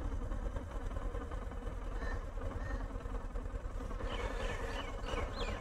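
Motorcycle engine idling steadily, a low pulsing rumble, with a few short high chirps, like a bird's, near the end.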